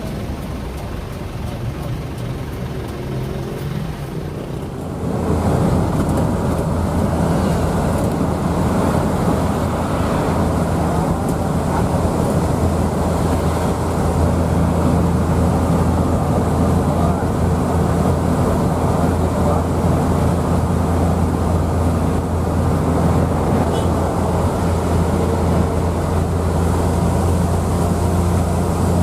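A new coach bus running on the road, heard from inside: a steady low engine drone with road noise. It jumps suddenly louder about five seconds in and holds there.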